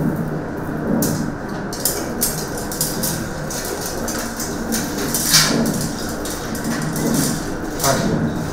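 Irregular sharp clicks and rustles, several a second, over a steady background murmur.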